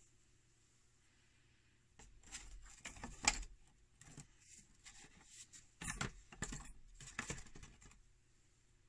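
Metal clinking and rattling in three short clusters, starting about two seconds in: a small pan with a long wire handle is handled and set back down on its wire stand, the wire clattering against the metal.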